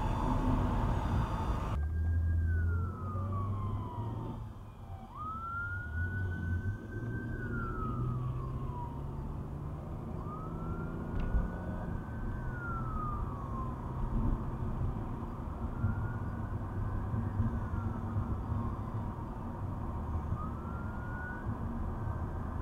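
Emergency vehicle siren wailing in slow rise-and-fall cycles, about one every five seconds, growing fainter, heard over the low rumble of road noise inside a moving car.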